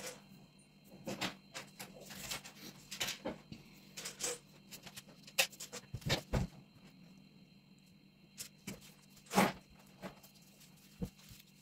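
Scattered soft rustles and light taps of plastic-gloved hands rolling and folding thin crepes on a wooden cutting board, with one louder sharp sound about nine and a half seconds in, over a faint steady hum.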